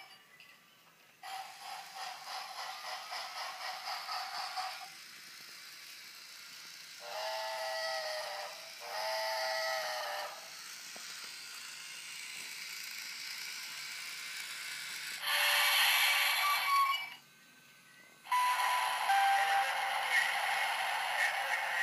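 Toy steam locomotive sound effects from a battery-powered Brio train: a rapid steam chuffing at about three puffs a second, then two whistle blasts, then loud hissing.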